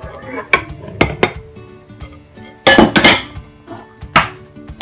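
Stainless steel stand-mixer bowl clanking and clinking as it is handled, a few sharp knocks with the loudest clatter a little past the middle and another near the end. Background music plays underneath.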